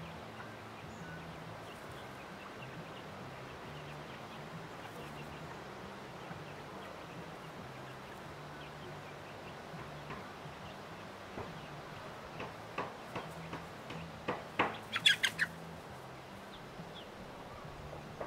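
A hen and her chicks foraging: faint chirps and clucks, then a quick run of short, sharp calls and clicks in the last few seconds, loudest about fifteen seconds in.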